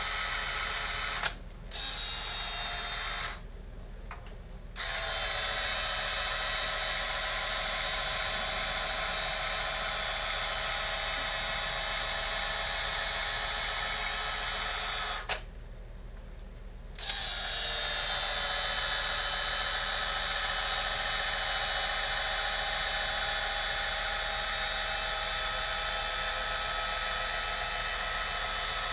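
Cordless 18-volt caulking gun, used as a boilie sausage gun, running with a steady motor whine as it pushes a fully stuffed tube of dough out through the nozzle. The motor stops for a moment about a second in, then twice more for a second or two, near 4 s and 16 s in, between runs of dough.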